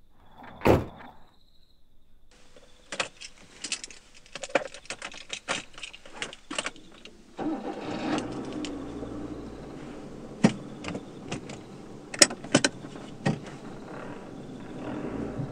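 A car door thumps shut, then car keys rattle and click at the ignition for several seconds. About seven seconds in a car engine comes on and keeps running steadily, with a few more sharp clicks over it.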